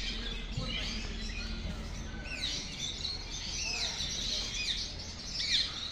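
A number of birds chirping and calling together: many short, high, downward-sliding chirps overlapping, growing busier about two seconds in.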